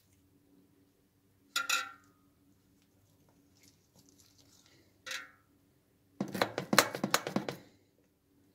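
Metal clinking against a black enamelled roasting pan as a kitchen knife and raw meat are handled in it: a single ringing clink, another a few seconds later, then the loudest part, about a second and a half of rapid clattering.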